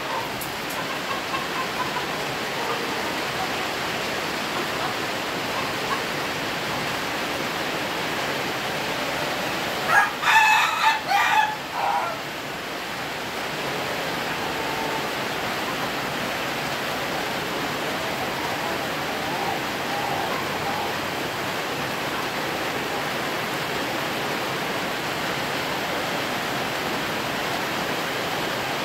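Ayam ketawa rooster crowing once about ten seconds in, a loud crow broken into quick stuttering notes like laughter, over a steady hiss.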